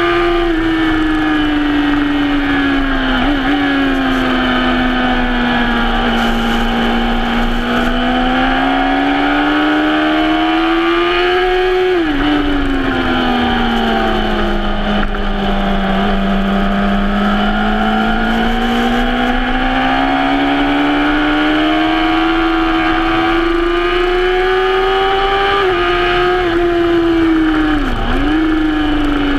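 Suzuki sport bike's engine running hard at high revs, heard from on board. The note sinks and climbs slowly, drops sharply about twelve seconds in, and dips briefly twice near the end as gears change.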